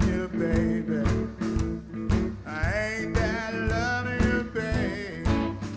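Live blues band playing with a steady beat: electric guitar, upright double bass and drums, with a harmonica over them.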